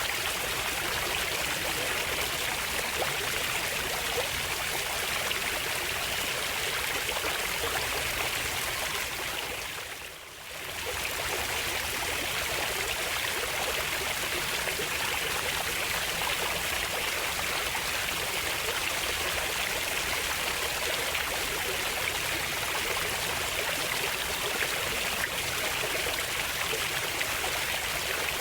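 Flowing water running steadily, a continuous stream-like rush, with a brief dip in level about ten seconds in.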